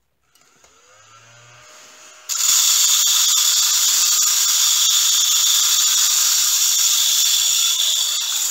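Battery-powered mini desktop vacuum switching on with a faint whine that rises in pitch, then about two seconds in becoming really loud: a steady high hiss with a fine rattle of resin diamond-painting drills being sucked in and running around inside.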